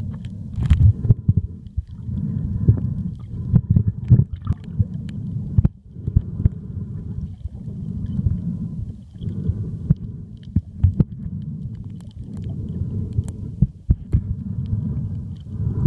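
Muffled rumble of moving water heard by a camera under water while snorkeling, swelling and dropping away every few seconds, with scattered sharp clicks.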